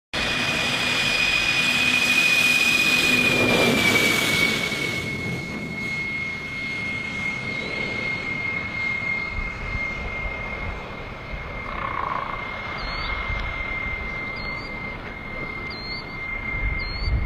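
Engines of a large radio-controlled Airbus A380 model in flight, giving a steady high-pitched whine. The whine is loudest for the first four seconds, then drops slightly in pitch and settles quieter and steady.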